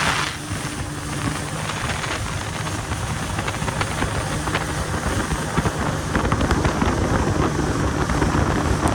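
Yamaha jet ski's engine running steadily while under way, with wind buffeting the microphone.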